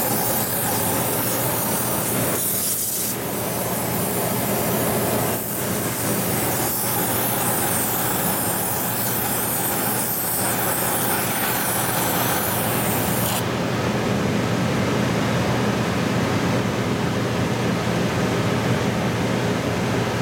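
Shop equipment running steadily: an even hum under a bright hiss, the hiss falling away a little past halfway.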